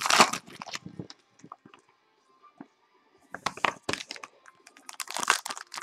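Crinkling and crackling of foil trading-card pack wrappers and cards being handled, in short bursts, with a quiet pause of about two seconds in the middle.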